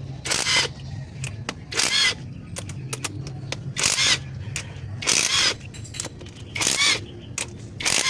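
Ratchet wrench clicking in short strokes, about six in a row a second or so apart, as bolts on a 4HG1 diesel's rocker arm assembly are undone, over a steady low hum.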